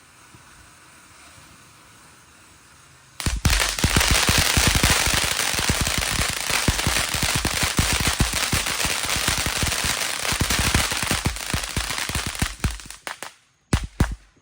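500-gram fountain firework crackling: a dense, rapid crackle starts suddenly about three seconds in, runs for about ten seconds, then dies off in a few last pops.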